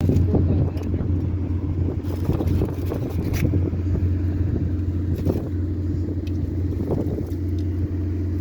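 Steady low rumble of a car on the move, heard from inside the cabin: engine and road noise with a few light knocks.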